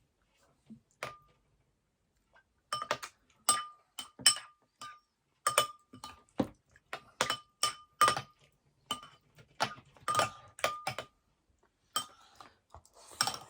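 A spoon clinking against a bowl again and again, about fifteen sharp irregular strikes, each with the same short ringing note, as porridge is stirred and scooped.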